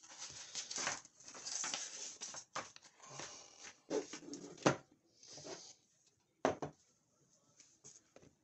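Paper sticker sheet and plastic packaging rustling and crinkling as they are handled, followed by a few sharp taps and knocks, the loudest a little under five seconds in.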